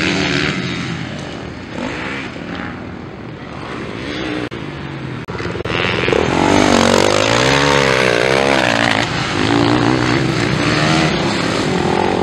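Motocross dirt bike engines revving hard, their pitch climbing and dropping through the gears, getting louder about halfway through.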